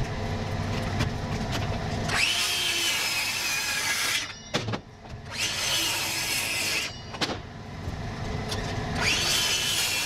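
DeWalt circular saw cutting wood three times, each cut a high whine about two seconds long that sinks in pitch as the blade goes through. A couple of sharp knocks fall between the cuts.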